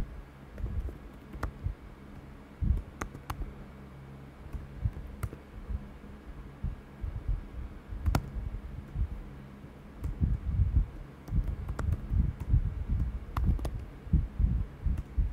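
Typing on a computer keyboard: a few scattered key clicks at first, then a quicker run of keystrokes from about ten seconds in.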